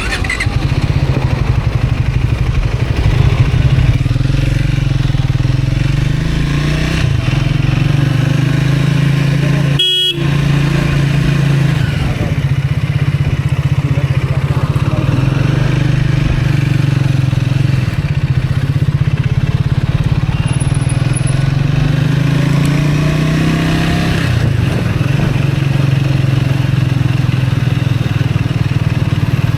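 Motorcycle engine running steadily on the move, its pitch rising and falling a few times with the throttle. There is a brief sharp break about ten seconds in.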